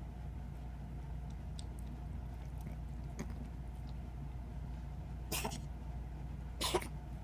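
A kitten coughing: two short coughs a little over a second apart, in the second half.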